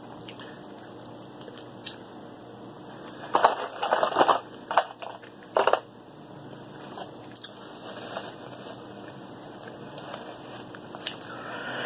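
Crackling, crunching handling noise from king crab leg shells and a foil pan, in a cluster of sharp crunches about three to four seconds in and two single crunches soon after. Softer rustling follows.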